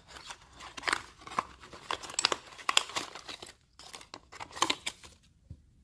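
Packaging crinkling and tearing as a small cardboard product box is opened by hand, in a run of sharp crackles and scratches that stops about five seconds in.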